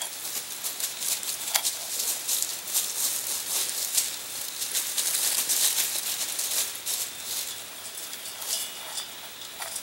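Dense crackling and rattling of hot roasted acorn pieces in a metal canteen cup as it is lifted off the campfire and handled, a steady run of sharp ticks.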